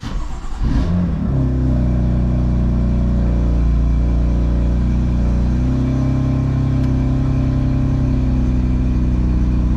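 BMW F80 M3's S55 twin-turbo straight-six starting up and settling into a steady idle, the idle dropping slightly about six seconds in.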